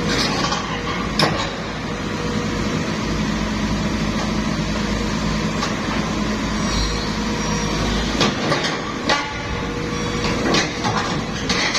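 Sumitomo SH210 excavator's diesel engine running steadily, with sharp metal clanks from its steel tracks about a second in and several more in the last few seconds, as it climbs onto a transport truck.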